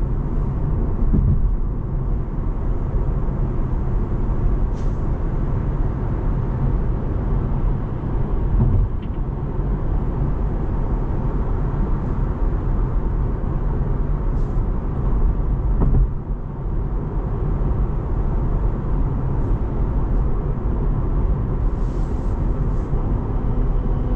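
Cabin noise of a Tesla electric car cruising at expressway speed: a steady low rumble of road and tyre noise with some wind, and no engine sound.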